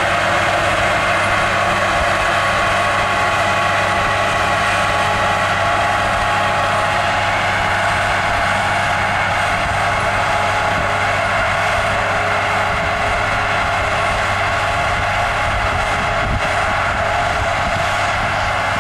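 Farm tractor pulling a row crop sprayer, its engine and the sprayer running steadily with a constant hum under a dense rushing hiss while it sprays.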